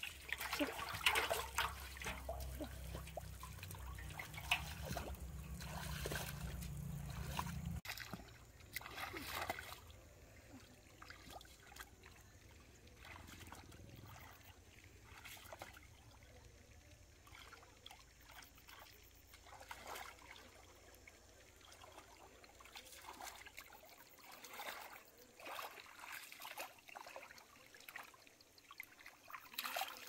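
Irregular small splashes, sloshes and trickles of water as hands move through shallow muddy water, groping for fish. A low rumble under the first several seconds stops abruptly about eight seconds in.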